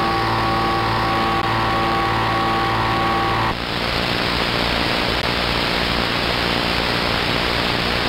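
AM radio receiver audio of washing-machine interference (QRM): a whine of several steady tones, pulsing regularly, over static hiss. About three and a half seconds in the tones cut off suddenly, leaving plain receiver static.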